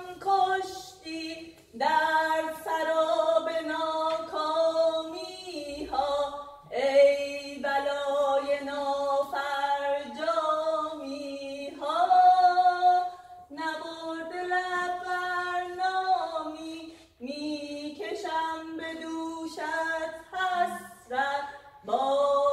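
A woman singing a slow Persian song unaccompanied, holding long notes and moving between them in stepped, ornamented turns, with short breaths between phrases.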